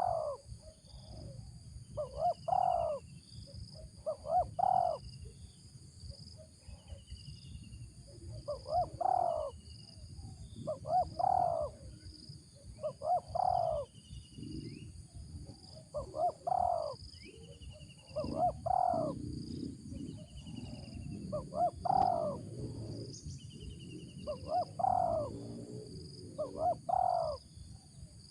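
Spotted dove (tekukur) cooing over and over, a short coo phrase roughly every two seconds. Steady high insect buzzing and the short chirps of another small bird run underneath.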